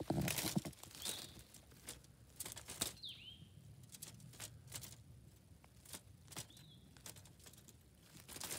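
Wire-mesh live trap rattling and clicking as it is handled and opened, loudest in the first second, with scattered small knocks after. A few brief high chirps sound over it, one sliding down in pitch.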